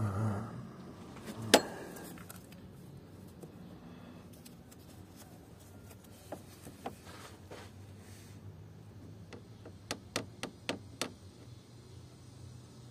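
Hand tools knocking and clicking against metal parts of an engine: one sharp knock about a second and a half in, a couple of faint clicks midway, and a quick run of five or six clicks near the end.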